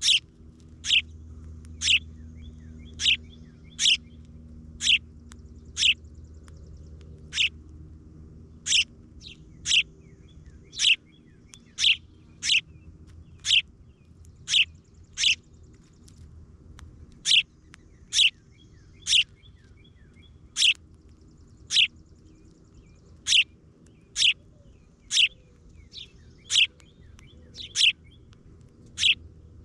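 A bird giving a sharp, high, down-slurred chirp over and over, about once a second and very regular, over a faint low steady hum.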